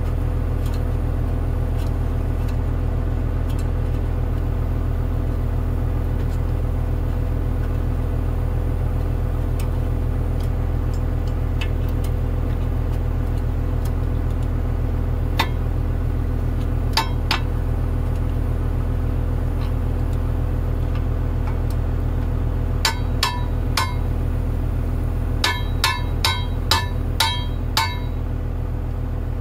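Small sledgehammer striking steel at a Case 450 dozer's track link and pin: a few scattered blows, then three, then a quick run of about seven ringing metal hits near the end. A steady engine idle runs underneath.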